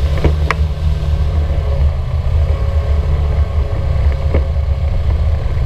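Polaris RZR 900 Trail UTV engine running steadily while driving, with a sharp knock twice near the start and once near the end from the back right of the vehicle, a knock the owners think comes from the sway bar.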